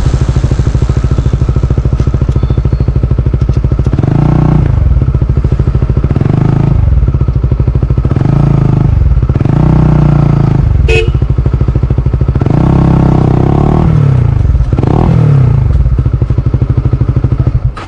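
Small single-cylinder Honda CBR motorcycle engine through a Yoshimura R77 full-system exhaust, idling and being blipped repeatedly, rising in pitch about every two seconds. The sound stops abruptly near the end.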